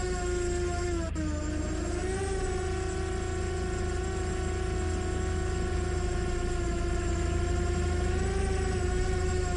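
Small quadcopter drone's propellers and motors whining steadily in flight. The pitch dips briefly about a second in, then rises back and holds.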